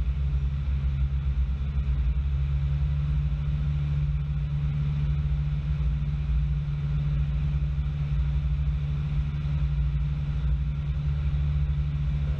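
Robin DR400 single-engine piston airplane heard from inside the cockpit, its engine and propeller running steadily at low power through the landing and rollout.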